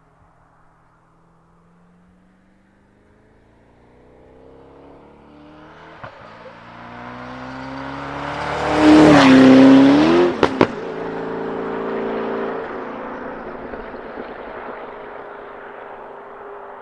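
Mazzanti Evantra Millecavalli's twin-turbo 7.3-litre Chevy LS7 V8 accelerating toward and past: the engine note climbs steadily and is loudest about nine seconds in. Two or three sharp cracks follow just after ten seconds, then the note drops in pitch and fades away as the car goes off.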